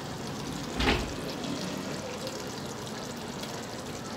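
Potato and mince curry simmering in an aluminium pot, a steady low hiss, with one short thump about a second in.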